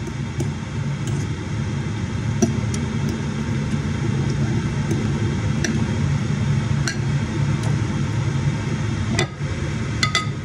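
Scattered light clinks of a metal fork against a ceramic bowl and a glass dish, a few in quick succession near the end, over a steady low hum.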